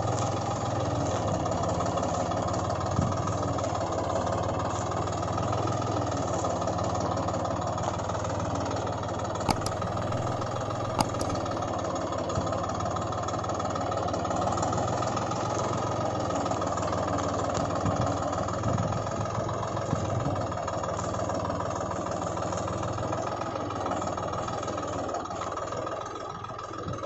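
A tractor engine running steadily at an even, idle-like speed, with two sharp clicks about ten and eleven seconds in.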